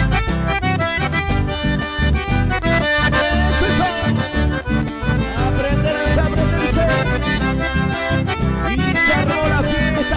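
Chamamé played live by a small band, a piano accordion carrying the melody over an electric bass with a steady beat.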